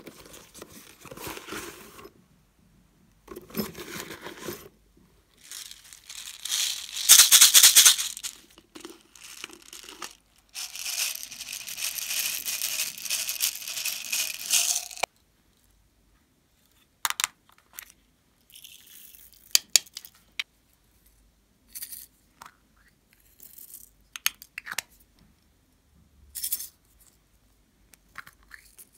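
Hands adding toppings to foam slime: bursts of rattling and crinkling, then about four seconds of steady rattling hiss as small pearl beads pour from a bottle, ending suddenly. After that come scattered light clicks and taps.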